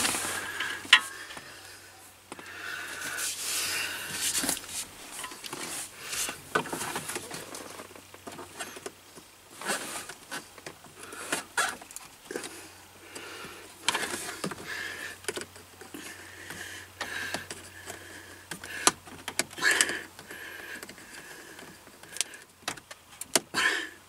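Hard plastic trim panels of a Toyota Tacoma's centre console being worked loose by hand around the gear shifter: scattered clicks, knocks, scrapes and rattles of plastic.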